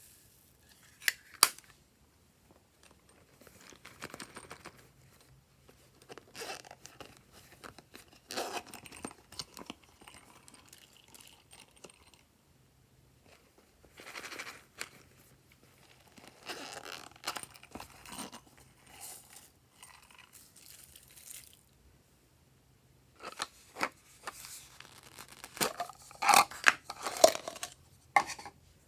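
Glossy slime being worked by hand: sticky crackling, clicking and tearing sounds in several bursts with short pauses between, the loudest run near the end.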